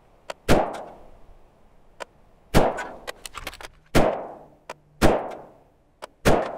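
Five rifle shots from a PSA Freedom AR-15, a second or two apart, each ringing out with a short echo. There are light clicks between the shots.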